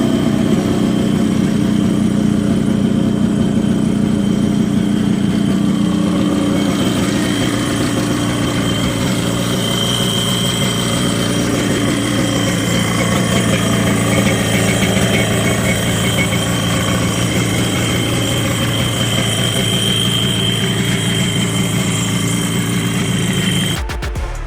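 1994 Kawasaki 750 SS Xi jet ski's two-stroke twin-cylinder engine running steadily at idle, freshly restored with a rebuilt carburettor. It cuts off suddenly near the end.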